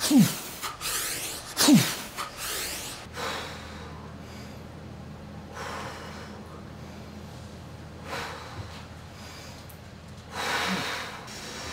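A person's short exertion grunts, each falling in pitch, twice in the first two seconds, then quieter breaths every couple of seconds over a faint low hum.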